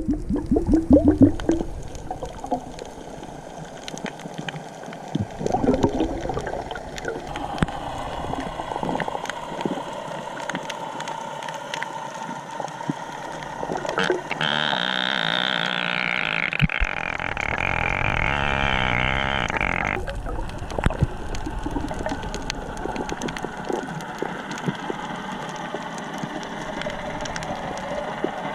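Underwater sound picked up by a GoPro's built-in microphone submerged without a housing: bubbly gurgles in the first two seconds and again around six seconds in, a continual scatter of small clicks, and a steady higher hum that starts at about fourteen seconds and stops suddenly at about twenty.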